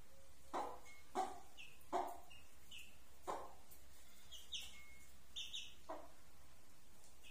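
Young chicks peeping: short, high, falling chirps scattered through, among five louder, lower calls, the strongest about one and two seconds in.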